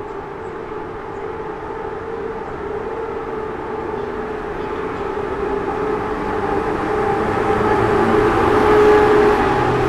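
PKP Intercity electric locomotive of the EU07/EP07 family pulling a passenger train away and passing close by, with a steady whining hum over the rumble of the train. The sound grows louder as the locomotive approaches, is loudest about nine seconds in, then eases.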